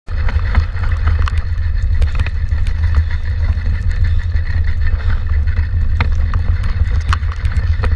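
Mountain bike ridden over a rough, muddy trail, heard through a handlebar-mounted camera: a steady low rumble of wind and vibration, with scattered clicks and knocks as the bike rattles over bumps.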